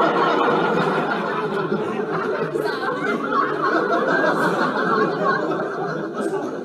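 Many people laughing together, a dense wash of audience laughter like a laugh track, running steadily and cutting off abruptly near the end.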